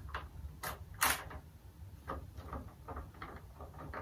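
Plastic fairing panel and hand tools being handled during removal of a motorcycle side panel: a couple of sharp knocks about a second in, then a string of light clicks.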